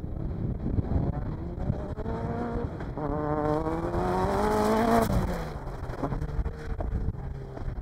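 Off-road racing car's engine revving hard as it accelerates past. The pitch climbs, drops briefly at a gear change about three seconds in, climbs again to a peak about five seconds in, then falls away as the throttle comes off.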